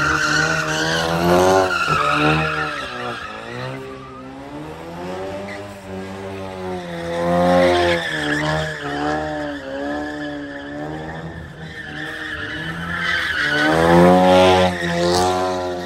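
A Ford Mustang's engine revving hard in waves, its pitch rising and falling as it spins doughnuts, with the rear tyres squealing against the pavement. The revs peak about a second and a half in, around eight seconds and again near the end.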